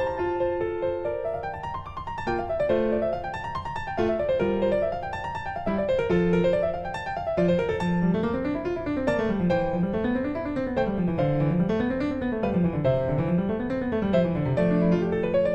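Instrumental background music: quick runs of notes rising and falling up and down the scale over held lower notes.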